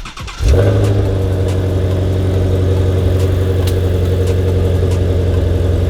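Ford Shelby GT350's 5.2-litre flat-plane-crank V8 cold-starting. It catches about half a second in, then settles into a steady, pretty loud cold idle.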